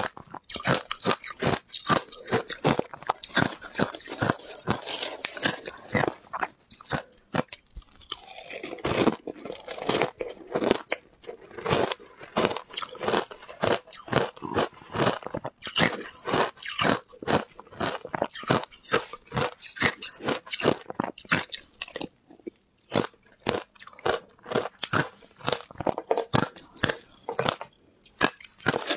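Shaved ice being crunched and chewed by mouthfuls close to a clip-on microphone: rapid, crisp crunches, several a second, with only brief pauses between bites.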